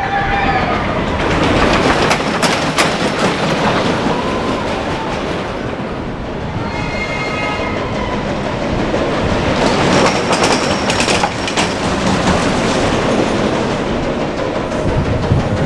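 Ride train rattling and clacking along a track, with sharp clicks a couple of times and a brief pitched squeal or horn-like sound midway.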